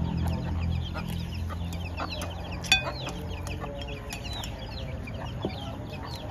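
Chickens clucking, with many short, high, falling calls throughout. A spoon clinks once on a ceramic plate about two and a half seconds in.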